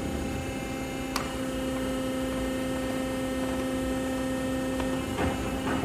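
Monarch Model 80 engine lathe running with a steady hum as its big four-jaw chuck spins, with one sharp click about a second in. The hum stops about five seconds in, followed by a few clicks and knocks as the headstock controls are worked.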